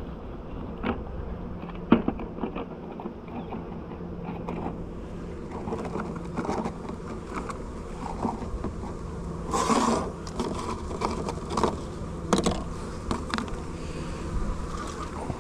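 Honey bees buzzing as a steady hum around a freshly disturbed hive, stirred up and defensive. Scattered knocks and rustles of handling come through it, the loudest about ten seconds in.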